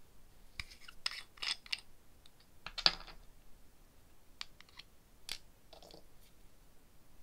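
Long nail tips clicking and scraping against a small glass jar and its screw cap as the jar is handled and opened: a scattered run of sharp clicks and short scrapes, the loudest about three seconds in.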